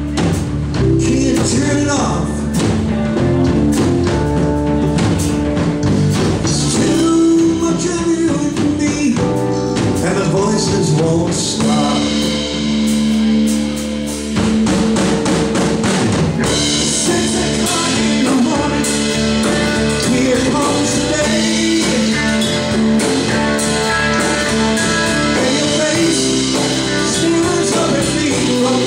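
Live blues band playing: electric guitar over bass, drum kit, piano and congas.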